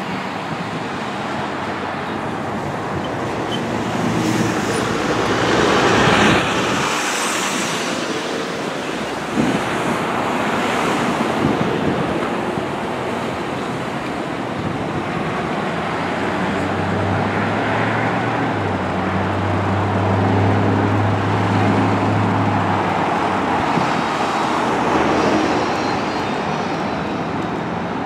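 Semi-truck diesel engines and tyre noise in street traffic, swelling as trucks pass close and fading again. A low, steady engine drone stands out for several seconds past the middle.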